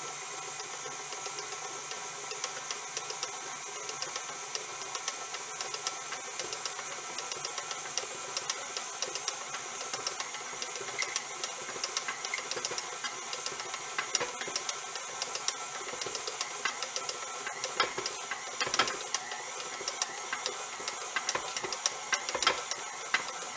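KitchenAid Classic stand mixer running steadily with its dough hook, kneading soft naan dough in the steel bowl. The motor gives a steady whine and hiss, with frequent light knocks that come more often in the second half.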